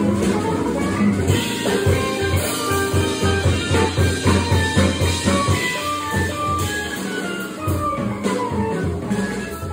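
Live jazz trio of electric guitar, organ and drum kit playing. Quick runs of single notes ride over a pulsing low bass line and drums.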